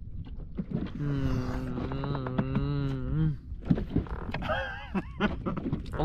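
A man's voice holds one long, slightly wavering hum-like tone for about two seconds. A short exclamation with rising and falling pitch follows, over a steady low rumble.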